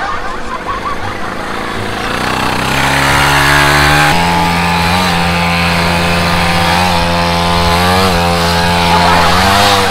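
Small petrol engine of a mini dirt bike running at fast revs. After a rougher start it settles into a steady note, steps up in pitch about four seconds in, and gets several quick throttle blips toward the end.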